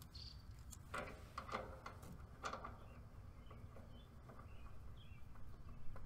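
Quiet outdoor background with faint small-bird chirps, and a few short clicks about one and two and a half seconds in as refrigerant hoses and valves are handled.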